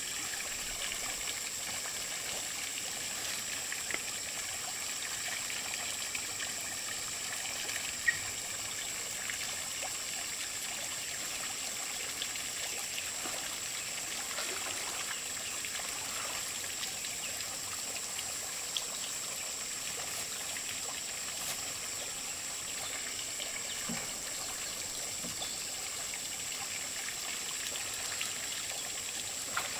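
Water trickling steadily from a bamboo pipe into a pond, with a steady high whine above it and an occasional faint knock.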